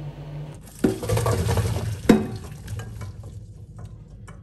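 Cooked palm nuts and their hot cooking water poured from a stainless steel pot into a metal mesh colander in a sink: a rushing splash with the nuts rattling, a knock of metal on metal about two seconds in, then a few small clicks as the flow dies away.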